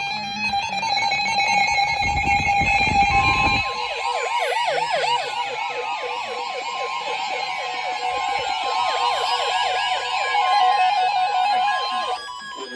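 Several weather radio receivers alarming at once for a NOAA Weather Radio warning: steady high alert tones throughout, with the warning alarm tone starting about three seconds in, joined by a rapid warbling siren-style alarm and slow falling sweeps. Everything cuts off together about a second before the end.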